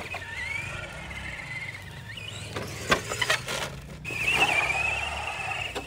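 Battery-powered RC truck's electric motor whining as it drives, the pitch rising and falling with the throttle. A few sharp knocks come near the middle as the truck bumps over the wood chips.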